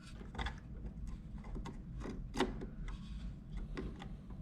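Scattered light clicks and knocks of a RAM module being handled at an open desktop PC case, with the plastic and metal of the slot area rattling; the sharpest click comes about two and a half seconds in.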